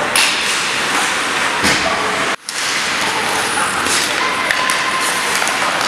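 Ice hockey arena sound: a steady hiss of skates on the ice, with a few sharp knocks of sticks and puck. The sound breaks off for a moment about two and a half seconds in.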